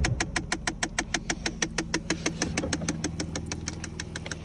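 Car engine idling with a rapid, even ticking knock, about seven a second, fading after about three seconds: the new knock the owner hears from the dashboard.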